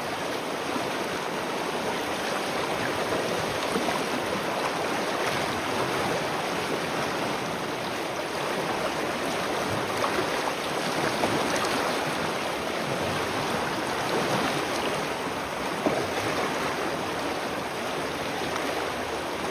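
Spring water running and splashing in a steady, continuous rush.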